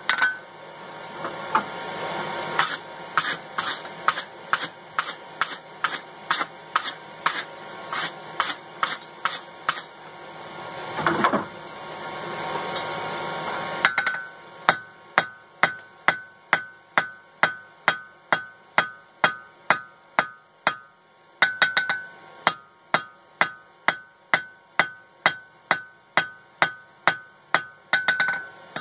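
Hand hammer striking red-hot coil-spring steel on an anvil, about two blows a second, the anvil ringing after each blow. The hammering breaks off for a few seconds a little before halfway and briefly again about two-thirds through. A steady rushing noise runs under the first half and cuts off about halfway.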